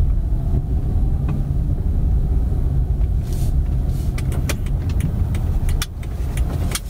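Car moving at low speed, a steady low rumble of engine and tyres, with scattered light clicks and ticks in the second half.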